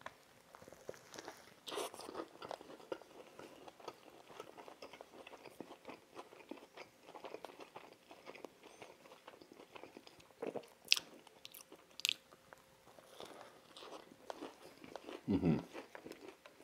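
Close-miked chewing of a mouthful of KFC Big Crunch fried-chicken sandwich: soft wet mouth sounds with crispy crackles from the breading and a few louder crunches. There is a louder mouth sound near the end.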